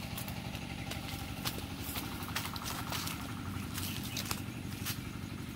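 An engine running steadily at idle, a low even hum, with scattered crackles and clicks of footsteps on dry leaves and twigs.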